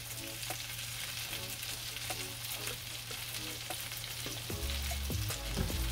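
Pork chops sizzling in hot olive oil and butter in a stainless steel skillet, a steady frying hiss. Near the end, low bumps come in under the sizzle.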